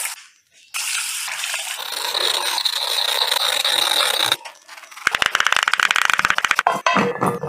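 A knife scraping the skin off a bottle gourd (lauki), a steady scratchy rasp for about three and a half seconds. Then a knife chops the gourd into cubes on a wooden board, in a fast run of sharp taps.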